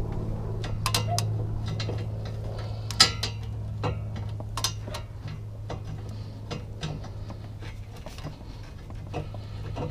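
Irregular metallic clinks and taps of a stainless-steel long-tube exhaust header being jostled into place against the cylinder head while its bolts are started, the loudest about three seconds in. A steady low hum runs underneath.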